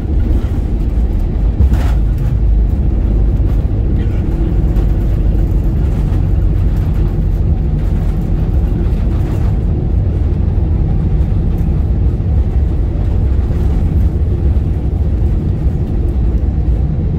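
Steady low rumble inside the cabin of an Airbus A320neo rolling on the ground after landing, with a couple of short knocks, about two seconds in and again near the middle.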